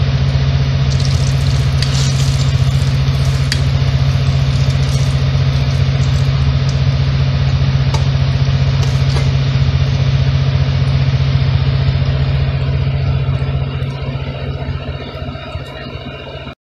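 Banana slices deep-frying in a pot of hot oil: a steady sizzle and bubbling that grows quieter over the last few seconds, over a constant low hum.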